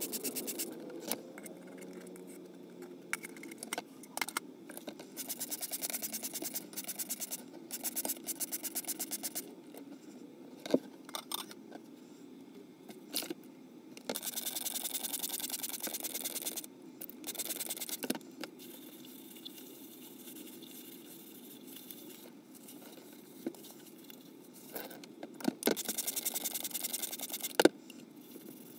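Dishes being washed by hand in a little water: several spells of rapid back-and-forth scrubbing, broken by sharp clinks and knocks of dishes being set down or bumped together.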